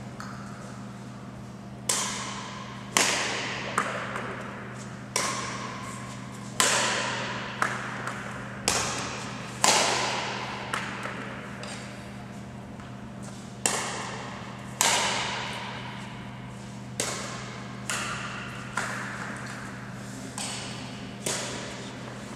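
Badminton rackets hitting a shuttlecock back and forth in a rally. There are sharp strikes about a second apart with a few longer pauses, and each hit rings out briefly in the large hall over a steady low hum.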